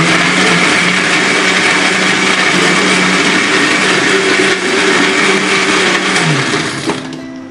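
Old electric blender grinding frozen strawberries with sugar, mint and water into a slush, running at full speed with a steady hum. About six seconds in the motor is switched off and its pitch falls as it winds down.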